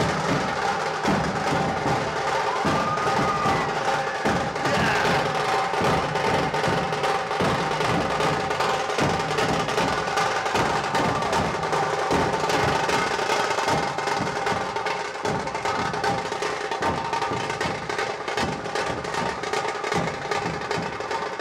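Music with a busy drum and percussion beat over steady held tones.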